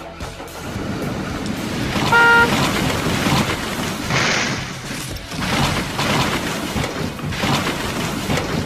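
A short horn toot, one steady note lasting about half a second, sounds about two seconds in over a loud, rough, noisy din that surges several times.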